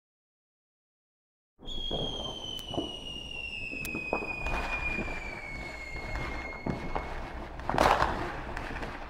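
Fireworks starting about a second and a half in: a long whistle that falls slowly in pitch, crackling and popping throughout, with the loudest bang near the end.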